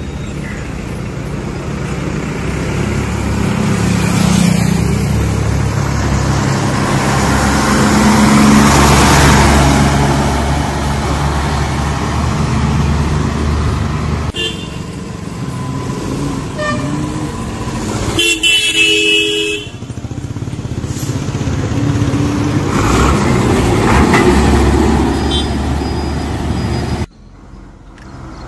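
Passing road vehicles, among them an old Ashok Leyland Comet bus with its diesel engine, each growing loud and fading as it goes by. A short horn toot comes about halfway, then a longer, louder honk a few seconds later. The sound cuts off abruptly near the end.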